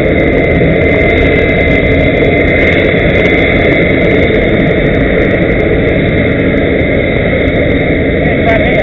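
Jet engines of a large military transport aircraft running on the tarmac: a loud, steady noise with a constant high whine.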